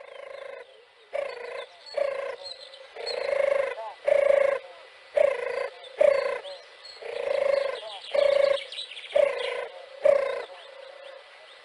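European turtle dove cooing: a run of about ten short, low coos in quick succession, some longer and swelling, starting abruptly.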